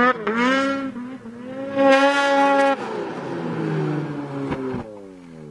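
Snowmobile engine revving hard, its pitch sweeping up, then held high and loud, dropping lower about three seconds in and winding steadily down near the end as the sled is crashed and the throttle lets off.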